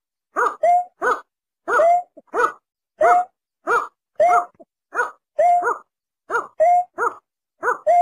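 Lure recording of male and female snipe calls: short, clear yelping notes repeated about twice a second, flat notes alternating with notes that rise and fall.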